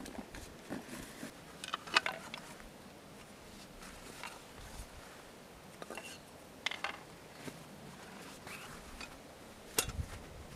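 Camp gear being handled: rustling from a backpack being rummaged, and light knocks and clicks as a wooden cup, bowl and spoon are set down, with the sharpest click about two seconds in and another near the end.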